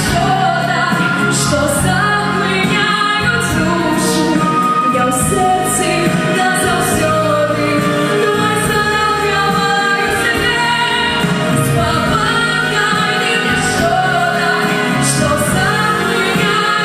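Female vocalist singing a song in a Belarusian folk-pop style over a backing track, with backing voices joining in.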